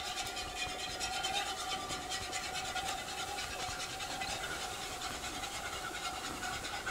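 Wire whisk scraping rhythmically around a pan, several strokes a second, as flour is poured into hot oil to start a roux, over a steady hum.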